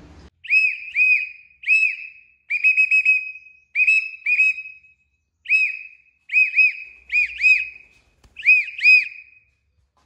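A person whistling short rising-and-falling notes, in quick runs of two or three, to call a young Alexandrine parakeet to fly to the hand.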